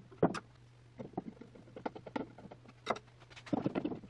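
A hand screwdriver driving a screw into the wooden runner of a table saw sled, with irregular clicks and knocks of tools and wooden parts being handled, a denser run of knocks near the end. A faint steady hum lies underneath.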